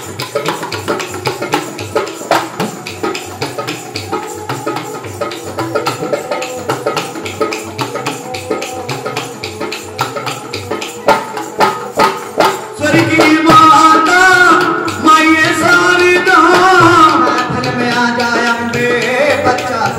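Folk devotional music: small hand-held hourglass drums beaten in a fast, steady rhythm over the sustained tone of a bowed folk fiddle. A man's voice starts singing about two-thirds of the way through, and the drumming goes on beneath it.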